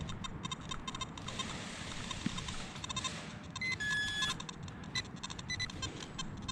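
Metal detector beeping while probing for a deep target: short electronic chirps throughout, with a held beep about four seconds in. Scraping of soil being dug is heard from one to three seconds in.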